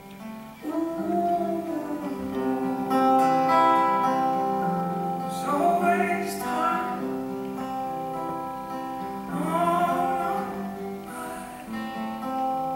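Acoustic guitar played live with a man singing long held notes that slide up and down, in several phrases.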